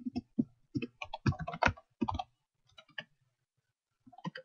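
Typing on a computer keyboard: a quick run of keystrokes for about two seconds, a few more about a second later, and two more near the end.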